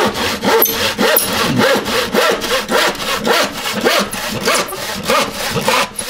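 An old, blunt hand saw cutting across a treated softwood gravel board in steady, quick back-and-forth strokes, rasping on each stroke.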